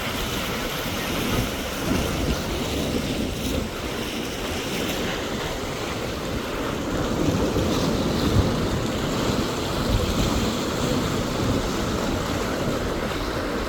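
Big ocean surf breaking and washing over jetty rocks, a continuous rushing that swells about halfway through, with wind buffeting the microphone.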